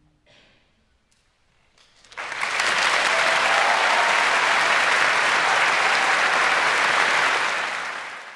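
Audience applause breaking out suddenly about two seconds in after a brief hush at the end of a choral piece, holding steady and then fading out near the end.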